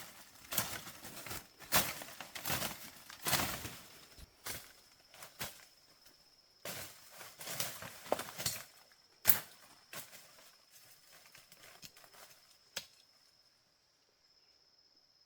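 Irregular rustling and sharp knocks, as of hands or feet working through leaves and wood, thinning out near the end, over a faint steady high-pitched tone.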